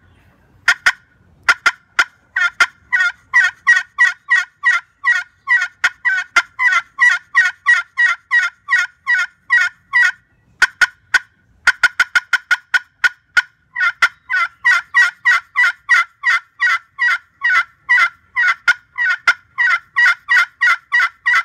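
Chestnut double-slate turkey pot call played with a wooden striker. It starts with a few sharp clucks, then a long, even series of yelps about three a second. Near the middle comes a burst of quick clucks and cutts, then another long yelp series.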